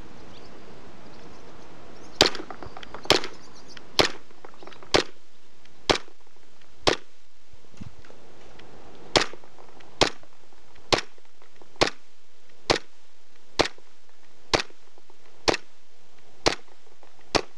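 Meister Glock 17 gas blowback airsoft pistol firing single shots, about one a second: six shots, a pause of about two seconds, then ten more.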